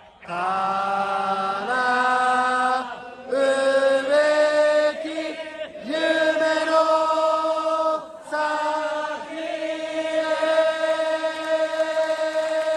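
Large crowd of baseball fans singing a cheer song a cappella in unison, in long held notes, phrase by phrase, with a few short breaks.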